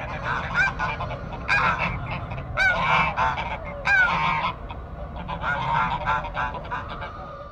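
Honking bird calls, many short overlapping honks with the loudest near the middle, over a steady low rumble.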